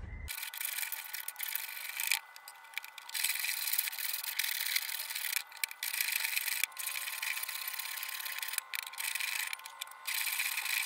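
Hand plane shaving the face of a pallet-wood board in long rasping strokes, each a couple of seconds long, with short breaks between them.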